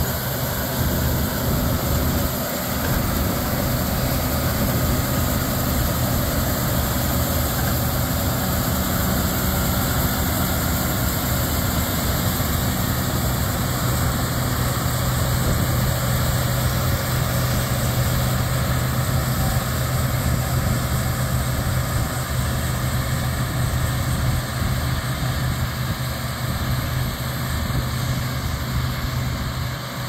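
International Harvester Axial-Flow combines harvesting soybeans: diesel engine and threshing machinery running steadily under load, a deep even hum.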